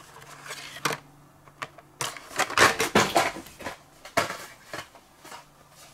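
Hot Wheels blister-packed cars being handled: stiff plastic blisters and card backs clicking and rustling against each other, with a sharp click about a second in and a busier stretch of rustling in the middle.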